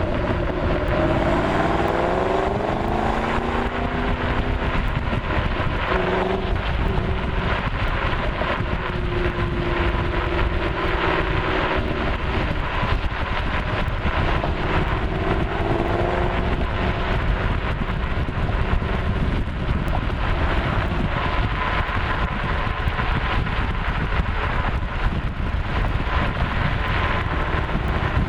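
Ford Mustang Shelby GT500's V8 engine and exhaust running under way, the engine note rising in the first few seconds and again about halfway through, over steady road and wind noise.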